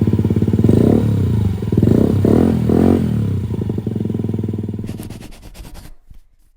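Honda Ruckus scooter engine running and blipped several times, its revs rising and falling. About five seconds in the firing pulses slow and die away as the engine shuts off.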